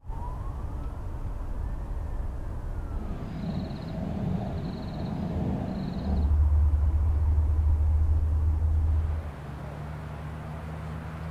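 Dark ambient horror drone: a faint tone glides up and back down, then three short high chirps come about a second apart. About six seconds in, a deep steady rumble swells and holds, then drops to a quieter low hum near the end.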